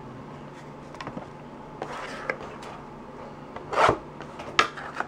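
Trading cards and a card pack being handled on a wooden desk: soft rubs and small clicks, then a short rasping slide about four seconds in as the pack is dragged across the desktop, followed by a sharp tap.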